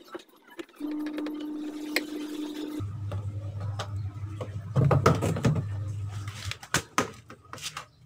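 Plastic back cover of a washing machine being unscrewed and pulled off, with clicks and knocks of plastic about five to seven seconds in. A steady hum runs underneath and drops to a lower pitch about three seconds in.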